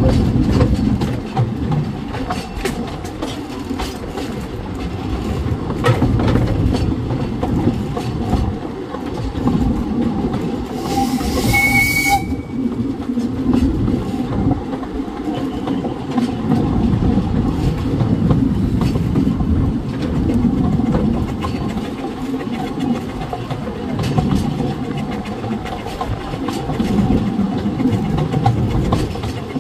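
Narrow gauge steam train running steadily, the coach rumbling and its wheels clicking over the rail joints. About eleven seconds in, the locomotive's steam whistle sounds once for a little over a second, with a rush of steam.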